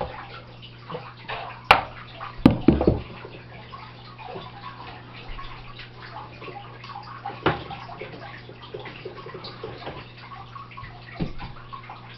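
A few sharp knocks and clatters over a steady low hum and faint rustling. The loudest two come about two seconds in, close together, and smaller knocks follow later.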